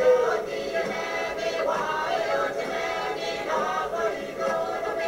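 Music with a choir singing, men's voices to the fore.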